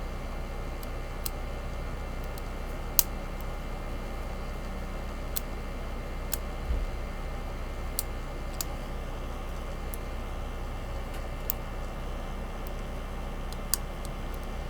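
A lock pick working the pin stack inside a Master Lock 570 padlock: scattered small, sharp clicks at irregular intervals, one louder click about three seconds in, over a steady low hum.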